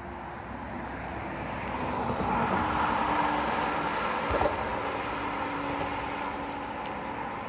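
A car passing by, its tyre and engine noise swelling to a peak just before the middle and then slowly fading, with one brief thump near the loudest point.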